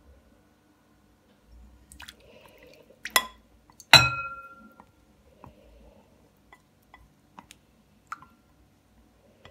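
Glass bowls clinking against each other as melted butter is scraped out of a small glass bowl into a large ribbed glass mixing bowl with a silicone spatula. A sharp knock about three seconds in is followed by a loud, ringing clink of glass, then a few light taps.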